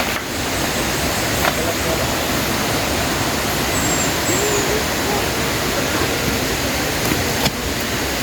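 Steady rushing of river water, with a short click about a second and a half in and another near the end.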